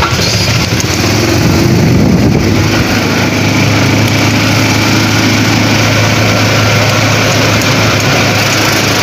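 Small petrol engine of a golf cart running steadily under way, with road and wind noise. The engine swells briefly about two seconds in.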